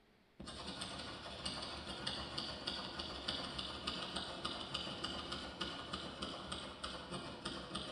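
Fast, even mechanical ticking over a dense steady clatter, starting abruptly about half a second in after a moment of near silence.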